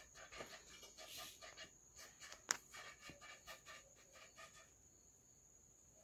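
Near silence: faint room tone with a steady high-pitched whine, scattered soft ticks and one sharp click about two and a half seconds in.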